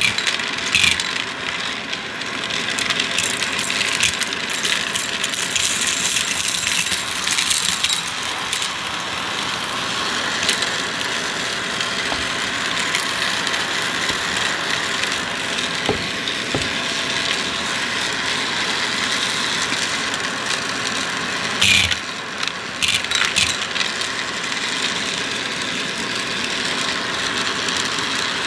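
Vacuum cleaner running steadily while sucking up crunchy debris, with a constant crackle and rattle of bits being picked up. A few sharper clicks come about three-quarters of the way through.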